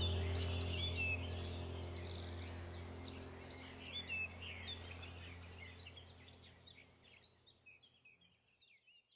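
Many small birds chirping over a steady low hum, all fading out to silence near the end.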